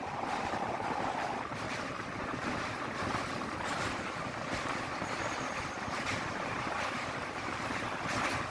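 Passenger train running across a steel truss rail bridge: a steady rush of wheel and rail noise, with wind buffeting the microphone.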